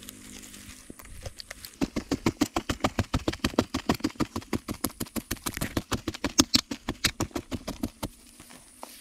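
A fast, even run of sharp knocks or taps, about five or six a second, starting about a second in and stopping near the end.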